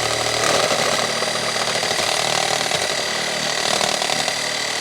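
A power tool's motor running steadily with a high whine.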